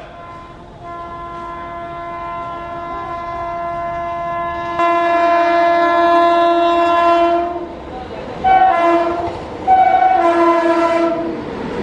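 A WAP7 electric locomotive's horn blown repeatedly as the train approaches. One long blast of about seven seconds grows steadily louder, then two shorter blasts follow.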